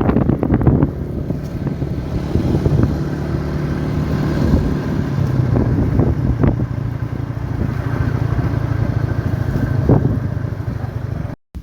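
A small engine running steadily, with wind buffeting the microphone and a few light knocks. It cuts out abruptly near the end.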